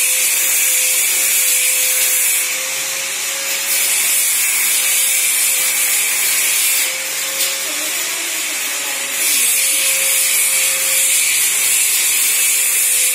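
Steady machine noise: a constant hiss with a steady hum underneath, brightening briefly a few times.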